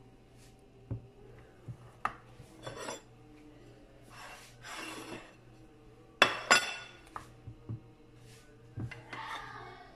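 A slotted turner scraping along the bottom of a glass baking dish as soft layers of a no-bake biscuit cake are lifted out. Several sharp knocks of the turner against the glass come through, the two loudest close together about six seconds in.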